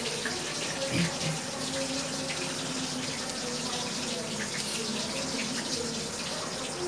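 A steady rushing hiss runs throughout, with a soft thump about a second in.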